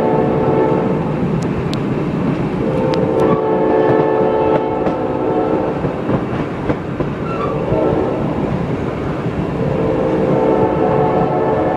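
Reading & Northern #425's steam locomotive whistle sounds the grade-crossing signal, long, long, short, long. The first blast ends about a second in and the last begins near the end. Underneath, the passenger car rumbles and clacks along the rails, with a few sharp clicks.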